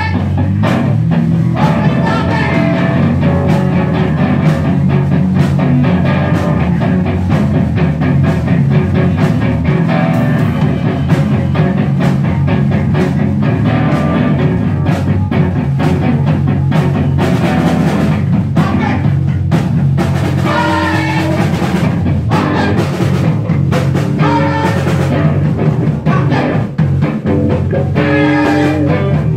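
Rock trio playing live and loud: electric guitar, electric bass and drum kit together in a dense, driving groove without a break.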